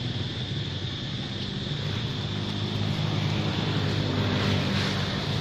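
A motor engine running steadily with a low hum that swells a little in the middle, over a steady high-pitched hiss.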